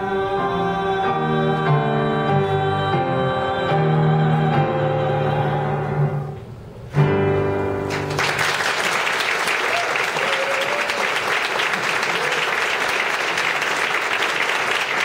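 The closing bars of a live stage-musical duet: male and female voices holding the final notes over instrumental accompaniment, ending on a last chord about seven seconds in. An audience then applauds steadily to the end.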